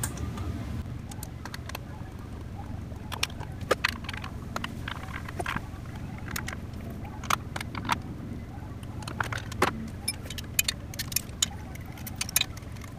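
Irregular small metallic clicks and clinks of a hand tool working the Allen bolts out of a motorcycle's chrome engine cover, over a steady low hum.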